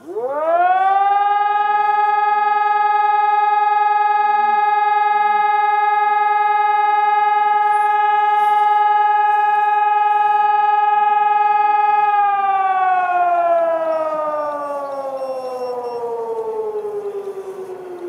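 Outdoor alarm siren sounding the fire-brigade call-out: it rises quickly to one steady tone, holds it for about twelve seconds, then winds down slowly in pitch.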